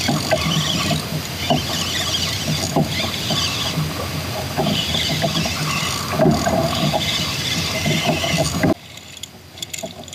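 Kayak on the water: recurring splashy strokes with a few sharp knocks, cutting off abruptly to quieter sound near the end.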